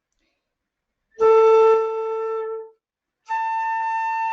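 Concert flute playing a harmonics exercise on the A fingering. About a second in comes a held low A, louder at its start. After a short break the same fingering is overblown to the A an octave higher, which is held steady.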